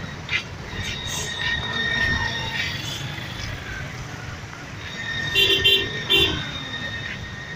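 Congested road traffic with a steady engine rumble; about five seconds in, a vehicle horn sounds a quick string of short toots, then one more.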